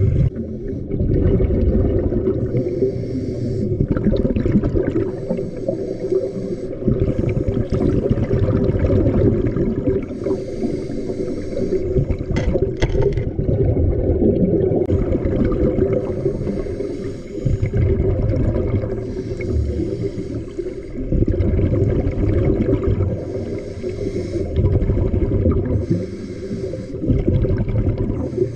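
Scuba diver breathing through a regulator, heard underwater: a hissing inhale about every three to four seconds, alternating with the low rumbling gurgle of exhaled bubbles.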